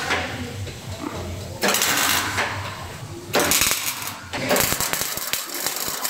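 MIG welding arc crackling in three bursts, starting about a second and a half in, with short breaks between welds.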